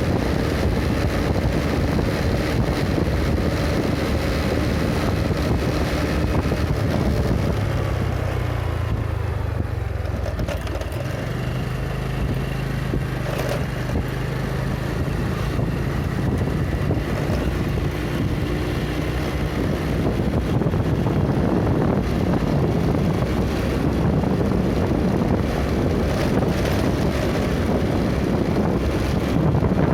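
A vehicle travelling along a road: a steady engine drone mixed with road and wind noise buffeting the microphone. The engine note dips and changes pitch about eight to eleven seconds in, then runs steady again.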